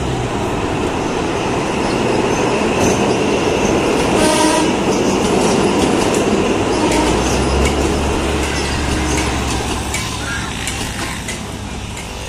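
Philippine National Railways diesel train passing, its rumble swelling to a peak about halfway and then fading. It gives a short horn toot about four seconds in, and wheels click over rail joints through the second half.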